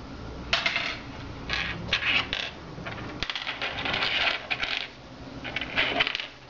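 Small metal assembly screws clinking and rattling together in several short bursts as loose handfuls are handled and sorted.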